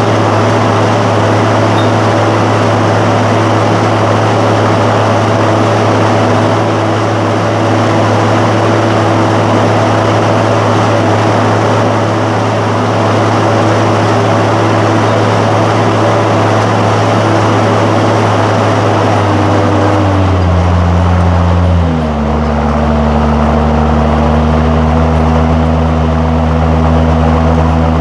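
John Deere 7515 tractor's diesel engine running steadily under load, pulling a disc harrow. About twenty seconds in, the engine note drops in pitch in two steps, then holds at the lower speed.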